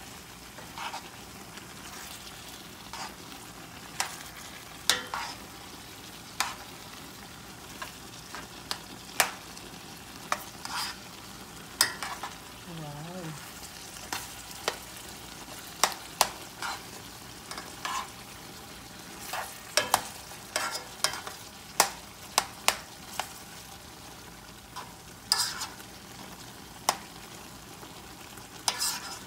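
Minced chicken and eggplant being stirred in a frying pan over a faint steady sizzle, with irregular sharp clacks of the utensil against the pan.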